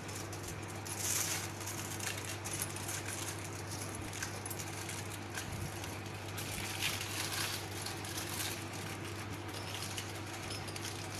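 Aluminium foil crinkling and crackling irregularly as hands fold and press it around a soft rolled dough, over a steady low hum.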